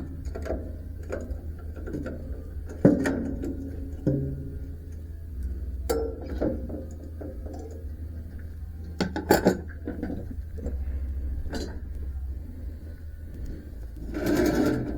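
Scattered metal clinks and knocks of hand work on a band sawmill during a blade change, with a few sharper knocks and a steady low hum underneath.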